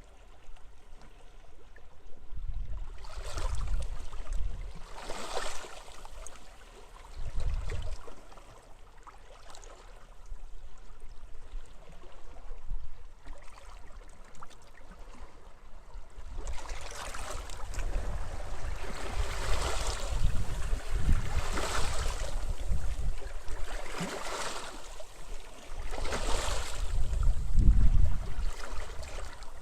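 Sea waves washing onto a beach in irregular surges, with wind gusting as low rumbles on the microphone. The surf grows busier and louder in the second half.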